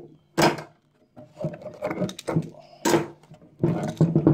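Bar clamps being loosened and pulled off a glued-up plywood panel: a string of sharp knocks and clatters of the metal clamps against the wood and the bench.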